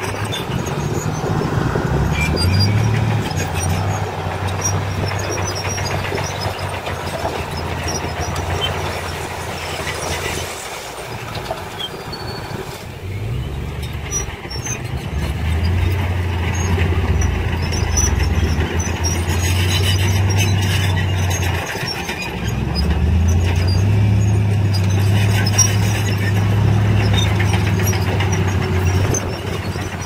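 Diesel engine of a 5-ton dump truck running and revving up in long stretches as it works the hydraulic hoist to tip a load of soil, with a dip in the engine note about ten seconds in.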